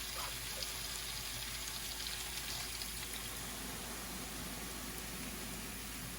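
A pot of curry on the stove boiling with a steady, soft hiss.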